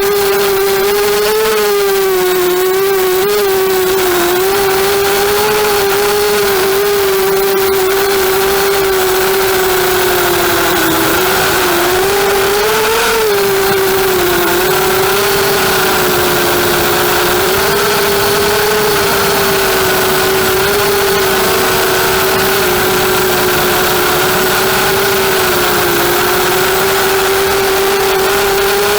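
Brushless motors and propellers of a 250-size FPV racing quadcopter in flight, giving a loud, steady whine whose pitch wavers up and down with the throttle, most in the first few seconds and again around halfway.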